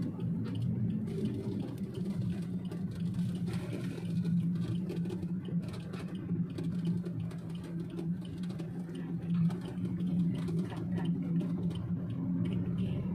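A car's engine and road noise, heard as a steady low hum while driving at an even speed.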